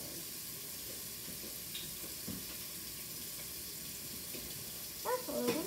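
Faint steady hiss of room tone with a couple of soft clicks as slime is pressed and pulled between fingers, then a voice starts near the end.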